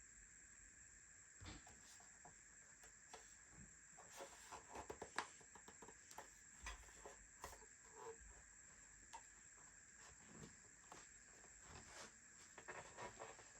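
Faint, scattered clicks and light taps of speaker parts and small hardware being handled, bunched together about four to five seconds in, over a faint steady high tone.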